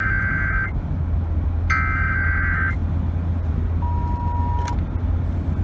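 Emergency Alert System SAME header data tones: two short bursts of buzzy digital tones about a second apart, then a brief single-pitch beep about four seconds in, over a constant low hum.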